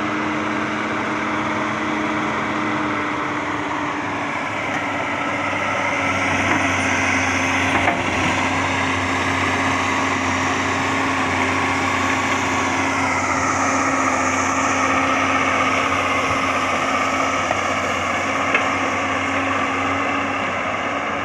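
Diesel engine of a Hyundai crawler excavator running steadily as the arm and bucket work, with a higher whine that rises and falls several times.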